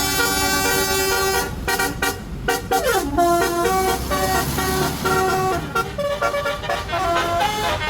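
Telolet horn on a tour bus: a multi-tone musical horn playing a quick tune of stepped horn notes, with one note sliding down in pitch about three seconds in.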